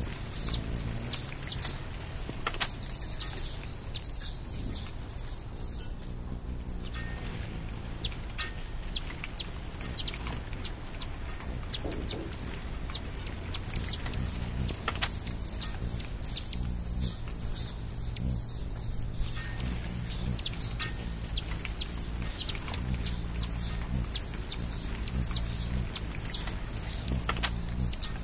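Nature ambience: a high, steady insect trill that breaks off twice, about five and nineteen seconds in, with short bird chirps scattered over it.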